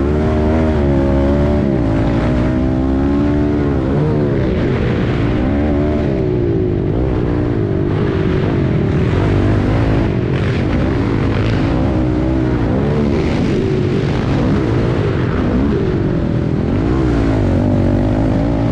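Dirt bike engine at race pace, its pitch repeatedly rising and falling as the throttle opens and closes through turns and jumps. It is heard close up from on the bike.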